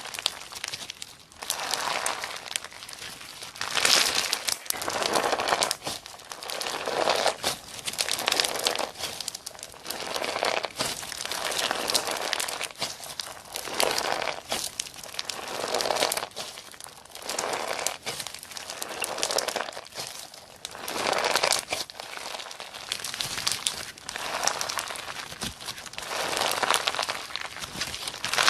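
Slime being pressed and squished, a run of noisy squishes that swell and fade about every one to two seconds.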